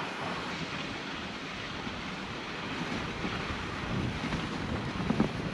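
Steady rushing hiss of a dog sled gliding over packed snow behind a running husky team, with wind buffeting the microphone.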